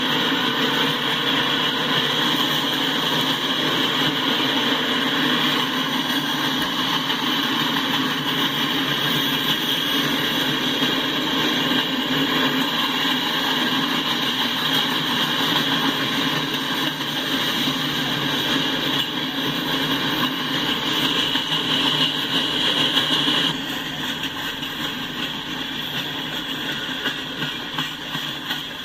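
Freight train of covered hopper cars rolling past at speed: a steady, loud rumble and rattle of wheels on the rails. A high hiss over it cuts off about 23 seconds in, and the sound gets a little quieter from there.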